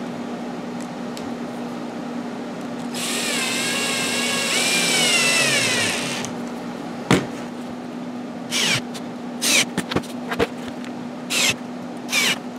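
Cordless drill-driver driving a screw through a wooden runner into a sled base: the motor whirs for about three seconds, its pitch wavering and then dropping as it slows under load. A sharp click follows, then several short bursts of the motor. A steady low hum runs underneath.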